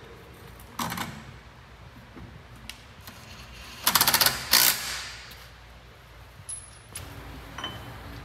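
Impact wrench hammering wheel lug bolts loose in short bursts of rapid rattling impacts: a brief burst about a second in, then two louder bursts around four seconds in.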